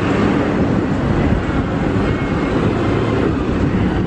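Steady, loud road and wind noise from riding in the open bed of a moving pickup truck, with wind rumbling on the microphone.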